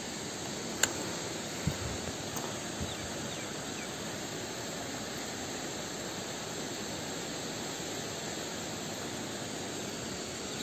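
Steady outdoor background hiss, with a sharp click about a second in and a faint knock shortly after.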